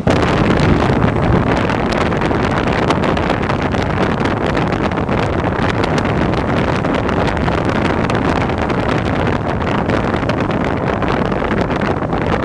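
Steady rush of wind buffeting the microphone on a moving vehicle, with road and engine noise underneath. The noise gets louder right at the start.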